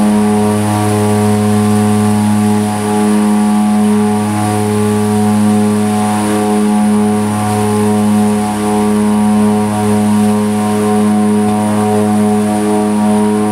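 Twin Otter's two Pratt & Whitney PT6A turboprop engines and propellers heard from the cockpit: a loud, steady propeller drone with a deep hum and its overtones that slowly swell and fade in a regular throb.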